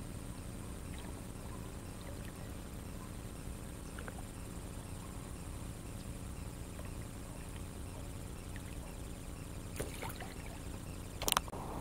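Water sounds around an inflatable kayak on a calm river: a steady low noise with faint drips and trickles, then a few sharp knocks near the end, the last one the loudest.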